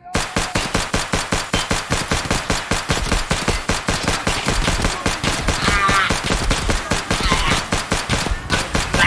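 Sustained rapid automatic gunfire, about seven shots a second, unbroken for roughly nine seconds.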